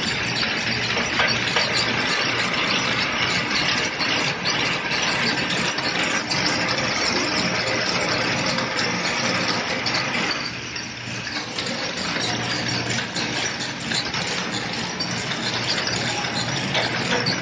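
Wire braiding machine running: a dense, steady clatter of its spinning bobbin carriers and braiding mechanism, with a steady low hum beneath. It dips a little in level for about a second around ten seconds in.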